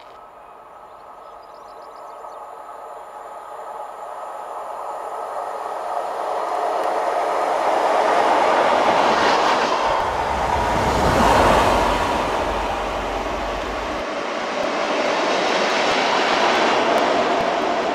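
Class 87 electric locomotive approaching and passing at speed: the rumble of wheels on rail and running noise grows steadily louder over the first eight seconds, peaks about eleven seconds in with a deep rumble as it goes by, then swells again briefly before easing.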